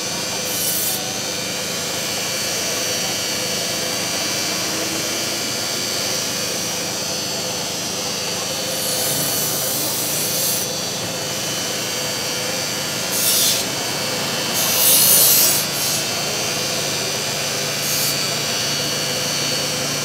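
Electric sharpening grinder running with a steady whine while a blade is pressed to the wheel in about five short hissing grinding passes, the longest about three-quarters of the way through.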